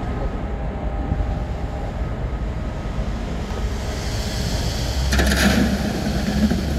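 Heavy diesel engines of the concrete pump and ready-mix truck running steadily, a low rumble under the pour. About five seconds in there is a short burst of hissing and rattling, and the rumble grows louder after it.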